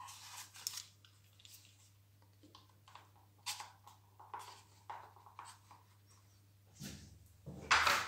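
Scattered small clicks and scrapes of hard plastic as the two halves of a Nilfisk G3 pressure-washer spray gun body are worked apart by hand, with a louder clatter near the end.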